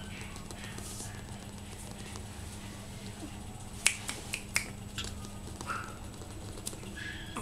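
A quick run of about five sharp finger snaps starting about halfway through, with a couple more later, made by a hand to get a Pekingese puppy's attention.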